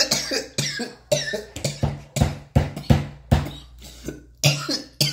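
A man laughing hard in a string of short, sharp bursts, about two a second.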